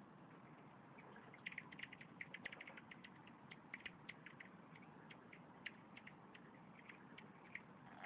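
Gold-spotted pond frogs giving short, faint 'jjok' calls, a quick irregular series of sharp chirps starting about a second and a half in and thinning out toward the end, over a steady background hiss.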